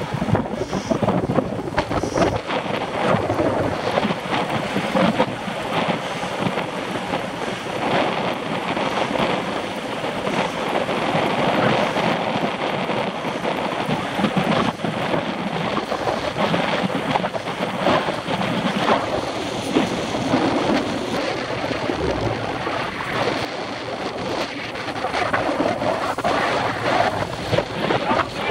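Wind buffeting the microphone of a camera on a moving road bicycle at riding speed: a loud, unsteady rushing rumble.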